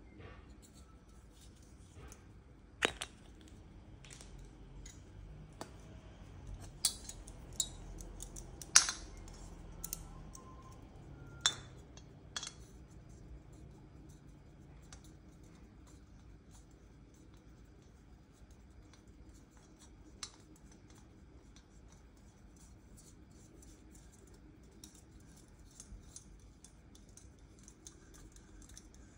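Handling clicks and clinks as a gas canister's plastic cap is taken off and an MSR PocketRocket Deluxe stove is screwed onto the canister, with small plastic and metal parts knocking together. The sharp clicks are scattered and come mostly in the first half; a lone click follows later, and faint ticks near the end come as the stove's metal pot supports are folded out.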